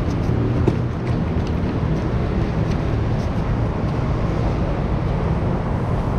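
Steady low rumble of an idling motor vehicle engine, with a single small click less than a second in.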